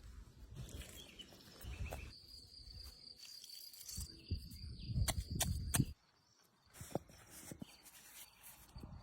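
Outdoor countryside ambience: low rumble with scattered clicks and knocks. A steady high trill runs from about two seconds in to just past the middle. The sound cuts off suddenly there, then comes back more quietly.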